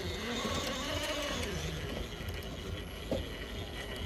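RC rock crawler's electric drive motor and geartrain whining as the truck crawls up rocks, the pitch rising and falling with the throttle during the first couple of seconds, with a short click about three seconds in.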